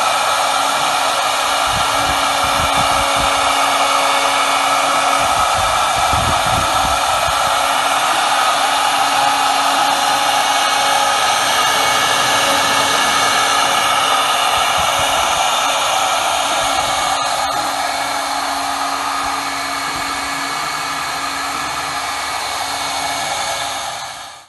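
CNC router spindle running with an engraving bit cutting into a wooden panel: a steady high whine over a rushing noise, easing slightly about two-thirds of the way through.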